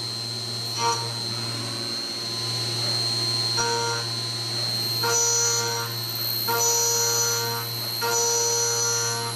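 A small CNC milling machine running over a steady hum, its axis motors giving out pitched, whining tones in stretches of about a second, several times in the second half.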